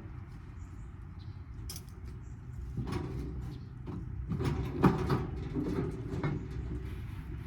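Scattered knocks and clatters of parts being handled while an air-conditioning unit is taken apart, bunched in the middle with one sharper knock, over a steady low rumble.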